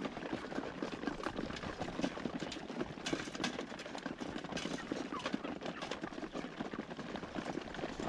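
A flock of chickens feeding: a dense, steady patter of quick taps and scuffles as many birds peck and jostle.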